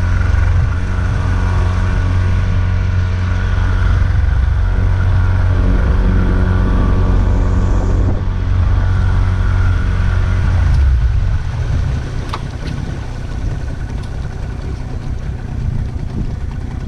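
Boat engine running steadily. About eleven seconds in, the even engine note gives way to a rougher low rumble.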